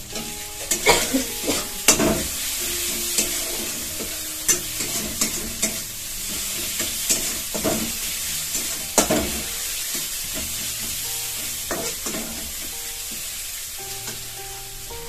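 Onion and spice masala sizzling steadily in hot oil in a kadai while a spatula stirs it, scraping and knocking against the pan every second or so over the sizzle.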